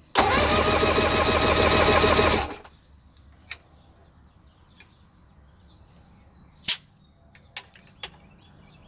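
1982 Mercury 115 hp inline-six outboard turned over by its electric starter for a compression test, a loud even pulsing chug for about two seconds, then stopping. A few light clicks follow as the compression gauge is handled. This crank gives cylinder 3 its reading of 128 psi, the lowest of the six.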